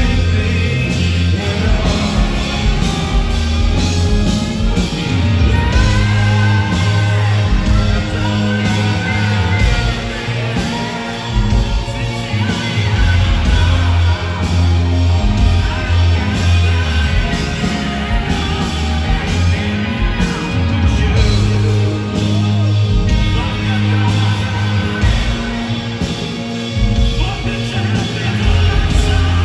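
Live rock band playing loud, with a lead vocalist singing over electric guitar and drums.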